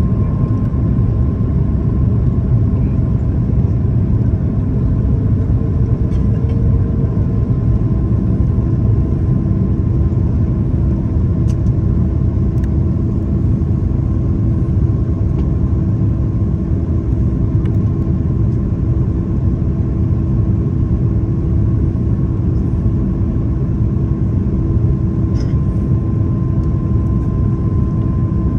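Airliner cabin noise on descent: a steady roar of engines and rushing air, with a few steady tones from the engines; one of the tones steps down in pitch about seven seconds in.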